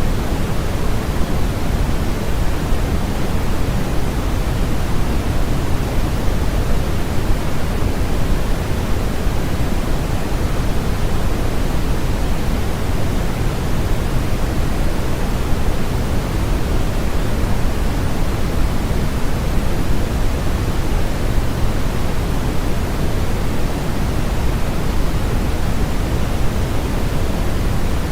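Steady, unchanging generated noise played as a sleep aid: an even hiss with no tones or events, heavier in the bass than in the treble.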